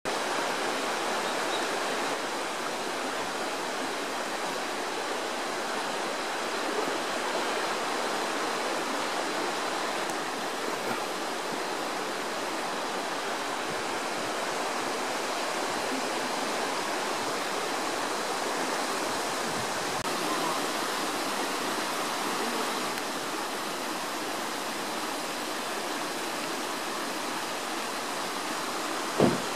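Shallow stream rushing and burbling over rocks in a steady wash of water noise. There is a short thump near the end.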